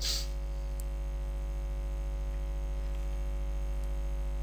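Steady electrical mains hum on the recording, with a short hiss right at the start and a faint click a little under a second in.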